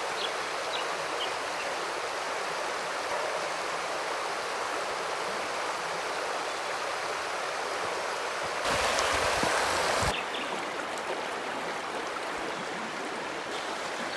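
River water running over rocks, a steady rushing flow. About two-thirds of the way through it turns louder for a second and a half, starting and stopping abruptly.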